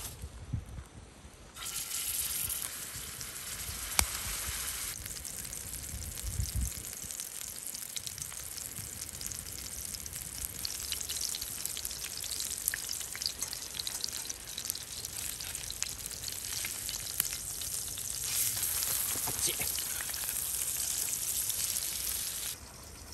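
Ground-meat hamburger patty frying in a black frying pan over a wood fire: a steady sizzle with fine crackling and spitting. It starts about a second and a half in, has a sharp click a few seconds later, swells a little near the end, then cuts off.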